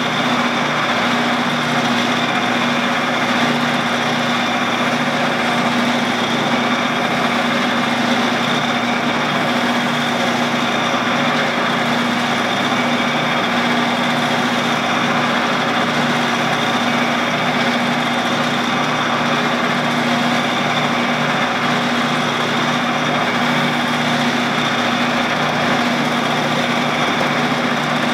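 Shopsmith running steadily, spinning a stainless steel tube as a rag polishes it: a constant hum with a high whine over an even rushing noise.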